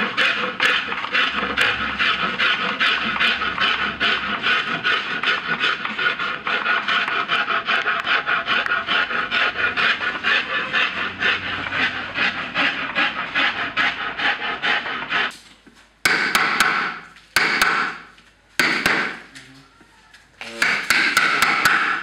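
Wood being rasped or sanded by hand on a carved djembe shell, in rapid, even back-and-forth strokes. After about fifteen seconds the rubbing comes in separate short spells with pauses between them.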